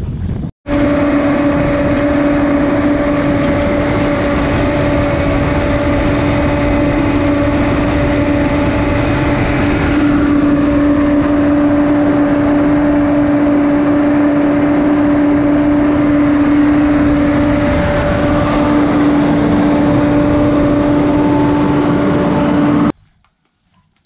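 John Deere self-propelled crop sprayer running as it drives across the field, heard close up from on the machine: a loud, steady engine and drive noise with a whine held at one pitch. It cuts off suddenly about a second before the end.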